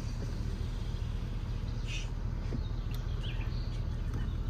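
Car driving along a dirt forest track: a steady low rumble of engine and tyres, with birds chirping briefly a couple of times in the middle.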